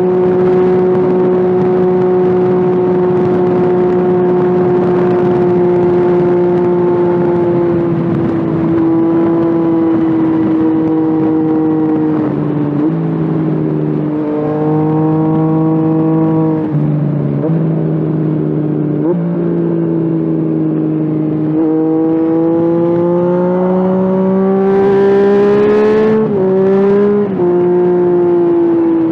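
Yamaha FZ-09/MT-09 inline-three motorcycle engine under way: it holds a steady note for about eight seconds, then the revs change in steps several times as with gear changes, and climb for a few seconds near the end before dropping sharply.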